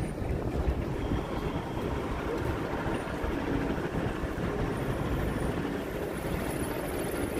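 Steady low rumble of city background noise, with no single event standing out.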